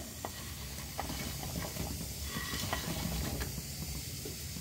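Pan of curry gravy at a rolling boil: a steady low bubbling full of small pops, with a few light clicks.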